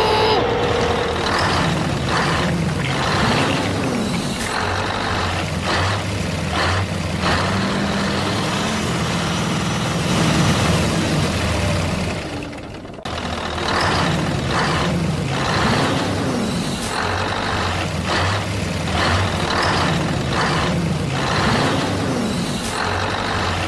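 A heavy truck's engine running with revs that rise and fall, cut by short air-brake hisses. It is a looped sound effect: the same stretch of about 13 seconds plays twice, with a brief drop just before it starts over.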